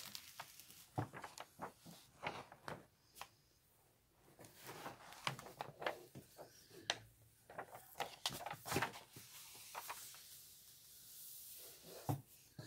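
Rustling and crackling of the protective cover sheet on a diamond painting canvas as it is peeled back and smoothed down by hand, with scattered sharp clicks.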